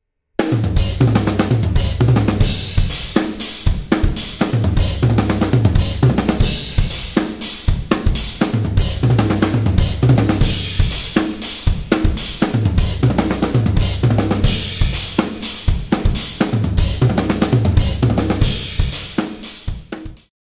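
Acoustic drum kit played solo. A groove on hi-hat, kick and snare alternates with fast fills that move between 16th and 32nd notes across snare, toms and kick drum, with cymbals ringing. The drumming fades out near the end.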